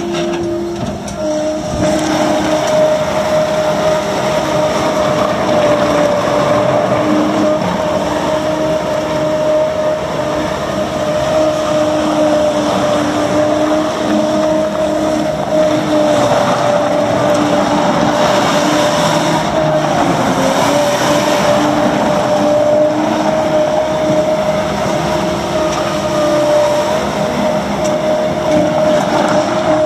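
John Deere 316GR skid steer loader's diesel engine running steadily with a high steady whine over it. The whine's pitch dips briefly about two-thirds of the way through.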